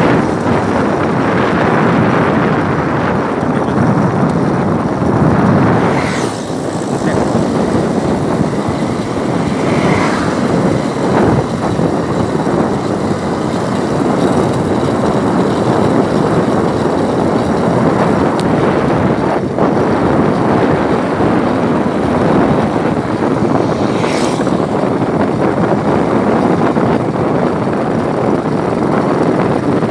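Steady wind and road noise from a vehicle moving fast along a highway.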